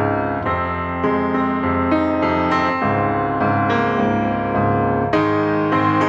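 Background piano music, with a new note or chord struck about every half second.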